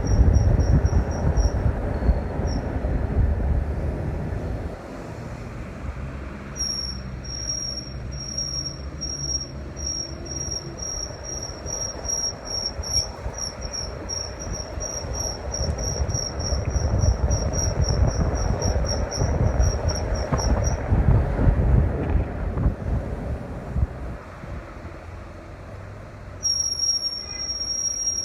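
A high-pitched squeal from the Ford Flex, pulsing rapidly on and off over low road rumble while driving. It drops out a little after the middle and comes back near the end.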